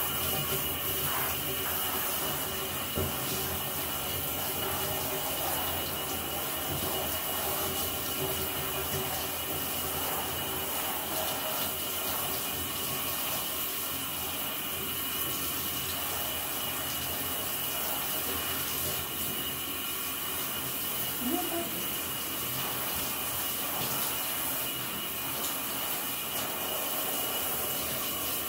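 Handheld shower sprayer running steadily, spraying water onto the dogs' wet coats and into the bathtub.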